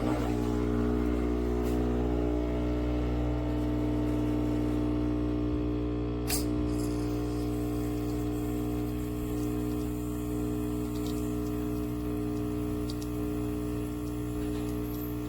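Capsule espresso machine's vibratory water pump switching on and humming steadily as it pushes water through the capsule, with a single sharp click about six seconds in.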